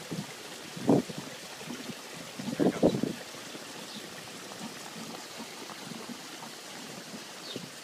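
Steady trickling and rushing of aquarium tank water, with short bursts of crackling about a second in and again around three seconds in.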